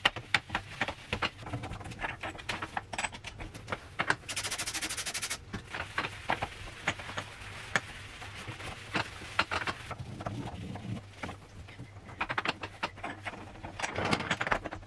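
A Scrub Mommy sponge scrubbing and a cloth wiping a stainless steel gas hob, with many small clicks and knocks against the burners and knobs. Just past four seconds in comes an even hiss lasting about a second. Near the end the cloth buffing the steel grows louder.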